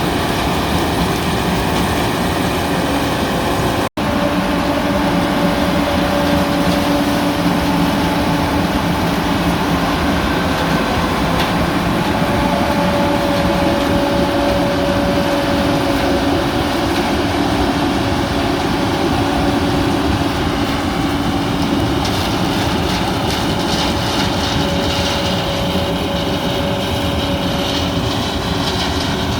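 John Deere 9600 combine running steadily while harvesting corn, its engine and threshing machinery making a continuous loud hum with a few steady tones. The sound cuts out for an instant about four seconds in.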